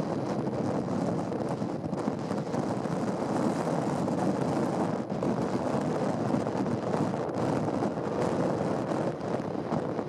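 Steady wind buffeting the microphone, a low rushing noise with no bird calls standing out.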